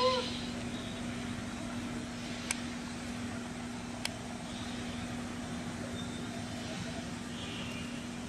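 Steady background noise with a constant low hum, broken by two sharp clicks about a second and a half apart. At the very start, the end of a baby macaque's high, cat-like call is cut off.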